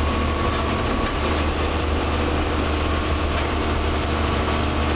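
Bus engine running steadily while under way, heard from inside the cabin as a deep, even hum with road noise and a thin steady whine.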